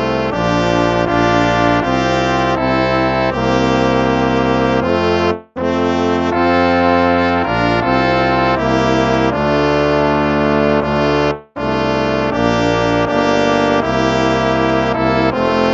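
Instrumental hymn music with a brass sound, sustained chords under a melody line, in phrases broken by two short pauses.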